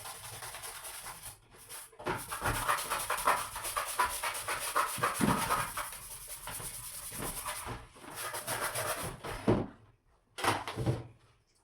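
Toothbrush scrubbing a washing machine's soap dispenser in quick back-and-forth strokes, working at stuck soap residue. Brief pauses about a second and a half in and near eight seconds, and the scrubbing stops about ten seconds in after one last short burst.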